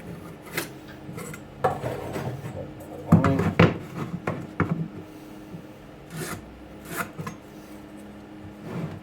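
Wood scraping and rubbing on a workbench, with several sharp knocks, loudest about three seconds in, as cedar boards are handled and marked.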